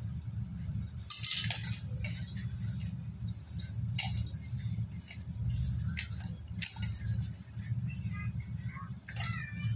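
Wet crushed slate pencil paste being kneaded by hand in a stainless steel bowl: irregular gritty crunching and squishing, with fingers and a steel spoon scraping and clinking against the bowl, over a steady low hum.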